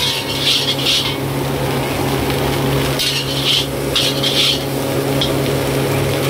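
A metal spatula scrapes and tosses fried rice around a large steel wok, in bunches of quick scraping strokes in the first second and again from about three to four and a half seconds in. A steady low hum runs underneath.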